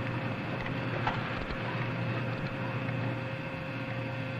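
Steady mechanical hum and hiss of a positive-pressure breathing machine running during a resuscitation attempt, with one faint click about a second in.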